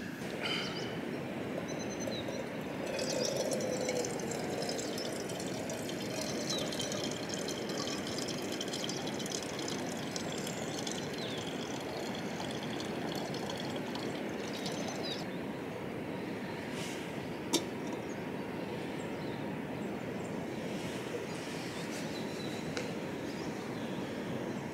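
Steady rushing of a small mountain river, an even hiss, with one sharp click about two-thirds of the way through.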